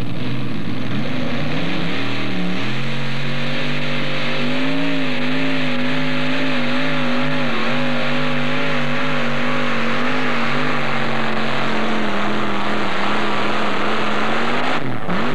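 Modified pulling tractor's engine at full throttle under load on the sled. Its pitch climbs over the first couple of seconds, then holds high and steady with a slight waver, and the revs drop sharply near the end.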